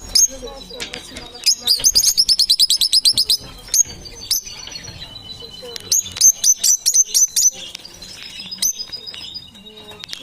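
Parrots chirping: two fast runs of sharp, high chirps, about ten a second, with single chirps between them. A thin, steady high whistle is held through the second half.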